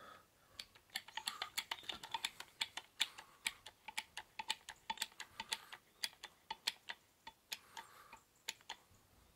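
Hydraulic hand crimper being pumped by its handle: a quick, uneven run of light clicks, about four or five a second, as the flat die is cranked down onto a length of copper tubing to flatten it.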